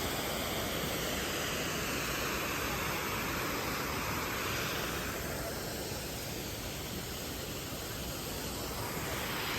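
Steady rushing of the Reedy River waterfall, an even roar of falling water that eases slightly past the middle and swells again near the end.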